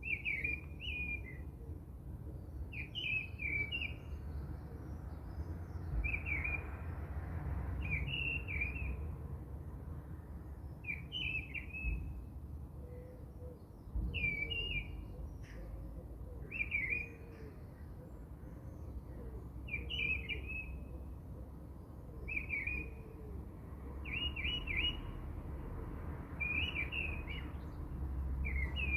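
A small bird singing short chirping phrases, repeated about every two to three seconds, over a steady low rumble.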